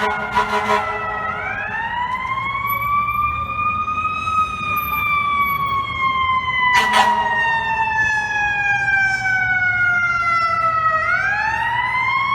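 Fire apparatus siren wailing. It winds up over about three seconds, slides slowly down for about seven, and winds up again near the end. Short horn blasts sound at the very start and about seven seconds in.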